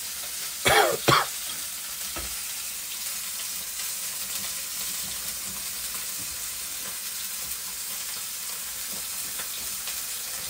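Steady sizzling of a hot frying pan from steak being pan-fried, with a short burst of voice about a second in.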